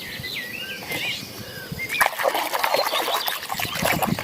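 Small birds chirping with short whistled notes. About two seconds in, louder splashing and sloshing water takes over as a muddy toy is washed.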